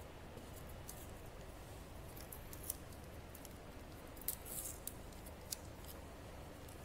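Faint, scattered small clicks and crinkles of gloved hands handling a blood lancet, readying it to prick a finger, over quiet room tone.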